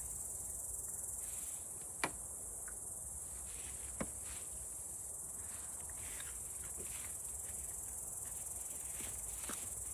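Steady high-pitched chirring of insects in summer grass, with two small sharp knocks, about two and four seconds in; the second is a small shot glass set down on the table.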